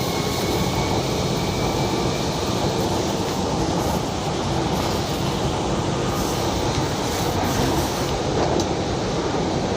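Inside a Kochi Metro carriage in motion: the steady rumble and rush of the train running along the track.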